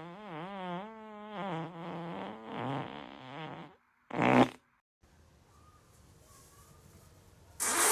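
A long, wavering fart whose pitch bends up and down and breaks into a few sputters, stopping a little under four seconds in. It is followed by one short, loud burst, then after a cut a quiet room and another short, loud burst near the end.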